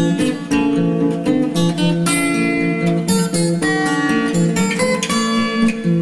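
Background music led by plucked and strummed acoustic guitar, with a string of picked notes over sustained chords.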